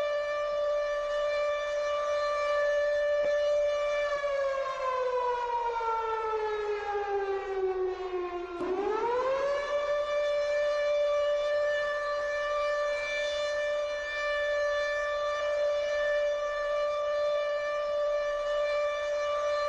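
Civil defence air-raid siren sounding a steady, loud tone. About four seconds in its pitch slides slowly down for several seconds, then sweeps quickly back up and holds steady again.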